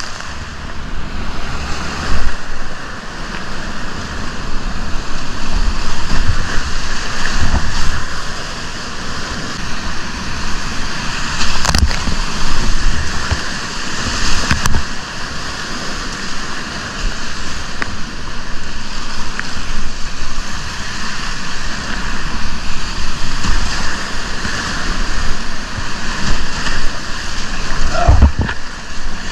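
Whitewater rapids rushing steadily around a kayak, with irregular thumps and splashes of water every few seconds, one sharp splash near the middle.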